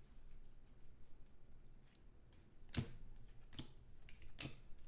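Trading cards being handled and flipped through by hand: quiet handling noise with a few sharp clicks of card edges in the second half.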